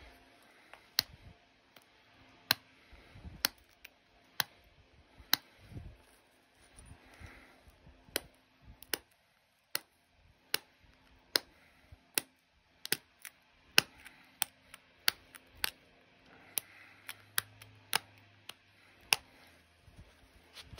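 Pressure flaking of an opalite (glass) arrowhead with a copper-tipped flaker: sharp clicks at irregular intervals, roughly one a second, as small flakes pop off the edge.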